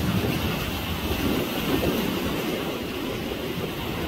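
Steady low rumble of wind buffeting the microphone mixed with sea surf, with no distinct events.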